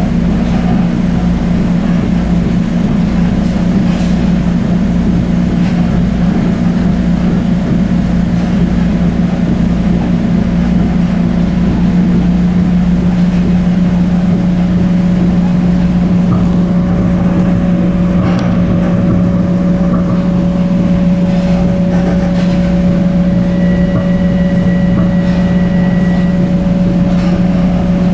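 Inside a Long Island Rail Road electric commuter train running at speed: a steady rumble of wheels on rail with a strong low motor hum that shifts in pitch about twelve seconds in, and a thin steady whine that comes up in the second half.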